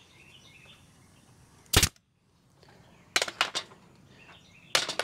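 Sharp, loud shots of a fastener gun driving fasteners into the wooden bottom bar of a beehive frame: one shot about two seconds in, then a quick run of several, and more near the end. Faint bird chirps are heard between the shots.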